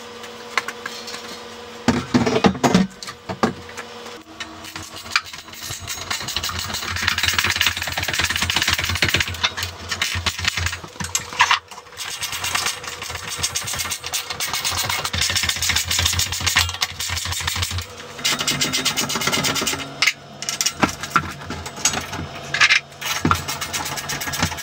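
A hand-held power tool running in long bursts while the steel handrail is bolted in place, with sharp metal knocks and clicks in between.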